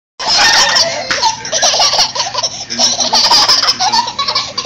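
Two toddlers laughing, giggling hard one laugh after another.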